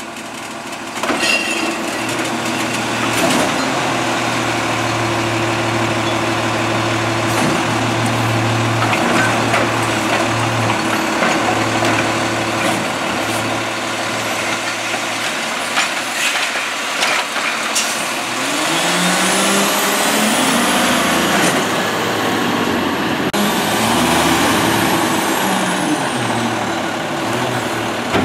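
Autocar Xpeditor automated side-loader garbage truck working a cart: a steady drone from the engine and hydraulics as the arm lifts and dumps the cart, with knocks as it shakes it out and sets it down. About 18 seconds in the engine revs up and down as the truck pulls away, with a hiss of air brakes.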